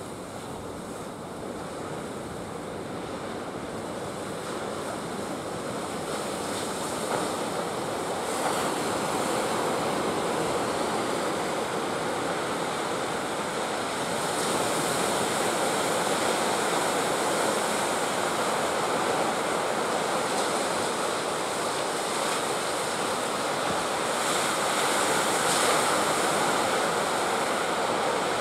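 Ocean surf breaking continuously on a rocky shore and sandbar, a dense steady rush that grows gradually louder.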